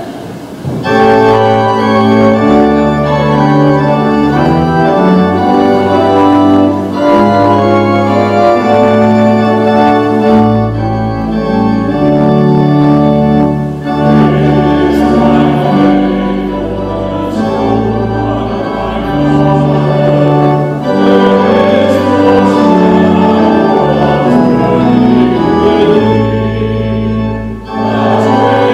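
Church organ playing a hymn in held chords over a low bass line, the chords changing every second or two.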